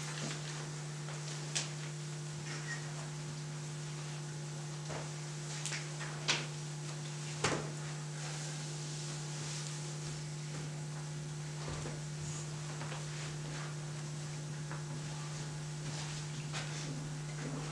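A steady low electrical hum, with a few brief small clicks and knocks scattered over it, the sharpest a few seconds in.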